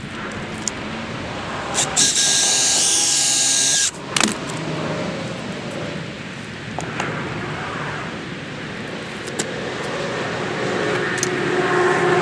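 A power tool runs in one sharp-edged burst of about two seconds, a couple of seconds in, while bolts are being fastened to a snow plow's rubber deflector. A lower steady background with a few handling clicks fills the rest.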